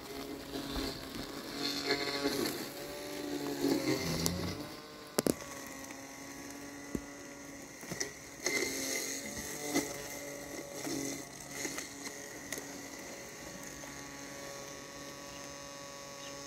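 Landxcape LX790 robotic lawn mower's brushless motors running with a steady electric whine as it cuts through tall weeds. The pitch wavers in the first few seconds, and there is a sharp click about five seconds in.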